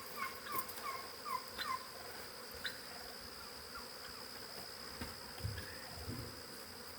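Outdoor insect sound: a steady high-pitched trill, with about six short falling chirps in the first two seconds and a few soft thumps about five and six seconds in.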